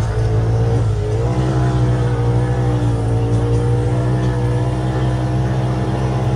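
Polaris RZR side-by-side's engine running under throttle, heard from inside the cab. Its note wavers about a second in, then holds steady.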